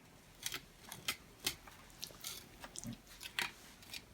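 Fillet knife cutting through a pike's flesh and along its bones: a series of short, irregularly spaced crunching cuts.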